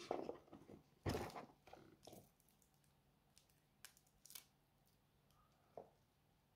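Faint handling noise of a wristwatch and its presentation box: soft rustles and a light bump in the first two seconds, then a few quiet clicks, otherwise near silence.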